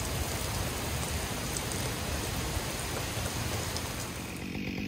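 Torrential downpour: heavy rain falling, a steady hiss with scattered faint drop ticks. The rain sound cuts away abruptly shortly before the end.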